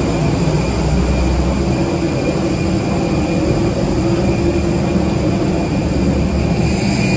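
Steady engine rumble with a steady hum and a faint high whine, no single events standing out.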